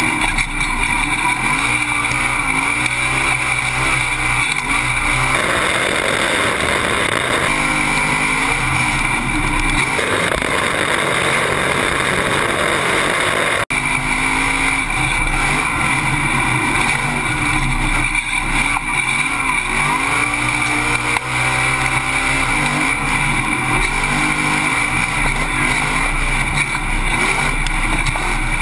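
Off-road race truck engine at racing speed, heard onboard, its pitch rising and falling with throttle and gear changes. A rushing noise swells over it for a couple of seconds twice in the first half, and the sound cuts out for an instant about 14 seconds in.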